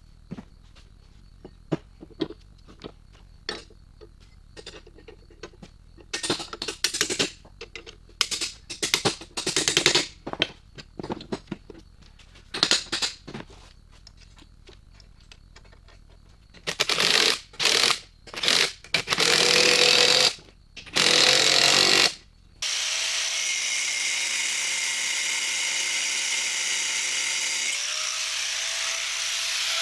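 A power tool run in many short bursts, then in longer bursts, then running steadily for the last seven seconds or so, with a steady whine in it.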